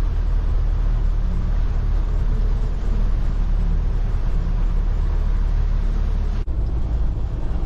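Car being driven, a steady low rumble of engine and road noise. About six and a half seconds in the sound breaks off abruptly and picks up again, changed in its low rumble.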